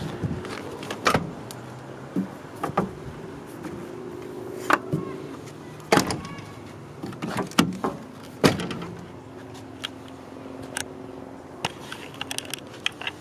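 Knocks and clicks from a Ford E-150 van's rear cargo doors and latch being handled and shut: about half a dozen sharp knocks, the loudest about six and eight seconds in, with lighter clicks near the end.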